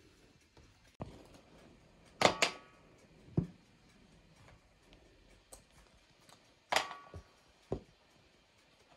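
Scattered sharp knocks and clinks of hard objects being handled, about seven in all. The loudest, a quick pair a little over two seconds in and another near seven seconds, have a brief ring.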